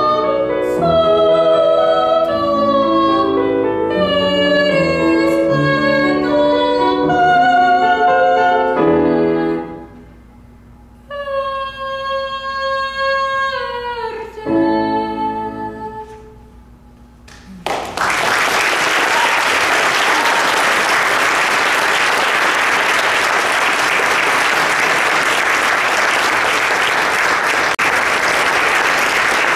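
A woman sings a classical song with piano accompaniment, ending on a long held note that slides down, followed by closing piano chords. About halfway through, audience applause breaks out and continues steadily.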